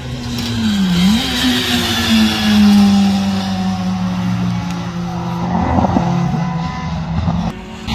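Rally car engine under load as the car drives away through a bend on a wet circuit; the engine note dips briefly about a second in, then climbs back and holds steady.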